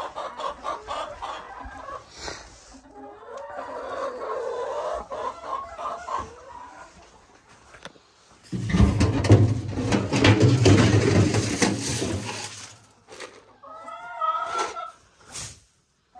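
Chickens clucking for the first several seconds. About eight seconds in, a loud rushing noise with a deep rumble takes over for roughly four seconds, and a short chicken call follows near the end.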